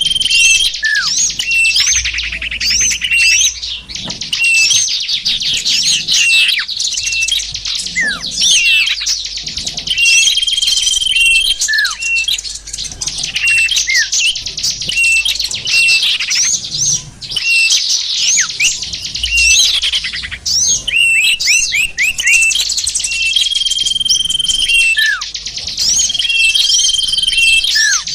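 Lure recording of small birds calling: a dense, continuous twittering of quick chirps, broken by sharp falling whistles and short steady whistles that come back again and again.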